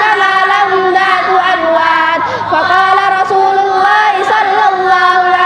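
A group of children chanting together in unison, holding long steady notes with small turns in pitch between them.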